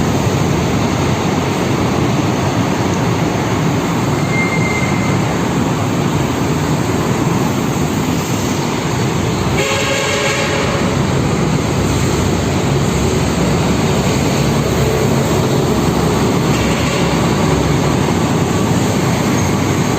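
Suzuki Raider 150 motorcycle engine running steadily and loudly, with a slight change in its sound about halfway through, during hard-starting troubleshooting on its KOSO carburettor.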